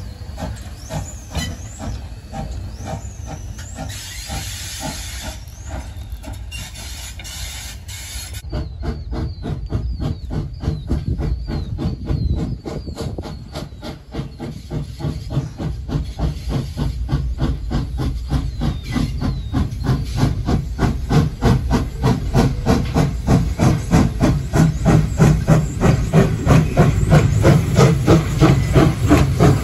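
Morehead & North Fork No. 12, a 0-6-0 steam locomotive, working under steam with a steady exhaust chuff of about three beats a second over a hiss of steam. The chuffing is faint at first, grows much louder from about eight seconds in, and is loudest near the end as the engine comes close.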